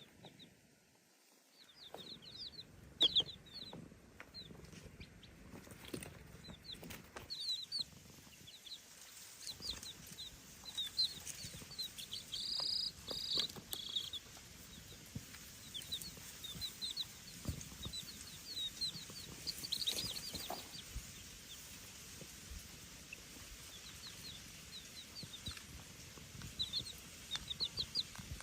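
Baby chicks peeping: clusters of short, high chirps that slide downward, scattered throughout, with a few faint knocks.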